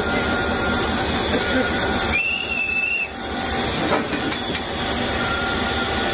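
Railway freight wagon on the track, a steady noise, with a brief high-pitched wheel squeal about two seconds in.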